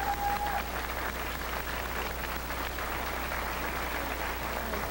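An audience applauding, a steady dense patter of many hands clapping.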